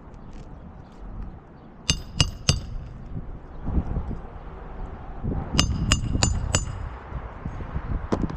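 Hammer strikes on metal with a bright ring: three quick blows about two seconds in, then four more a few seconds later, over low wind rumble on the microphone.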